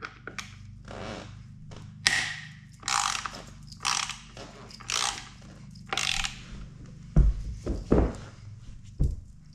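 Small hand ratchet with a 5mm hex bit clicking as it backs out a front fender bolt, in short rasping strokes about once a second. A few dull knocks follow near the end.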